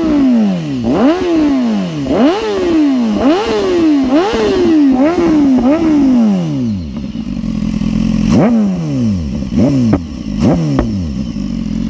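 BMW S1000RR inline-four engine through a Scorpion RP1-GP slip-on exhaust, revved in quick throttle blips about once a second, each rising sharply and falling back. About seven seconds in it settles to a steady idle, broken by three more short blips near the end.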